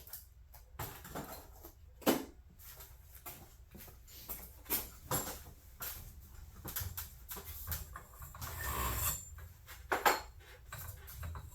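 Intermittent light metallic clinks and knocks of tools and hardware being handled, with sharper knocks about two seconds in and near ten seconds, and a brief scraping rub just before nine seconds.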